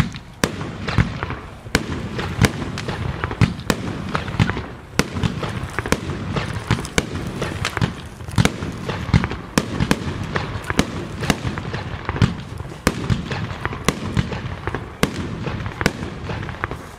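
Consumer battery firework (cake) firing shot after shot: sharp bangs about every half second to second, with dense crackling between them. The bangs stop near the end.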